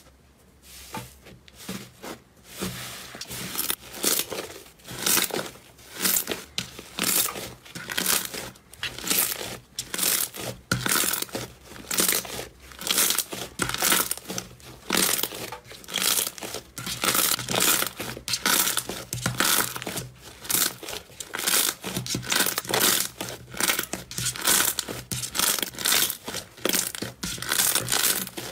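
Thick yellow slime being pressed and kneaded by hand, giving crackling, tearing squelches about once or twice a second.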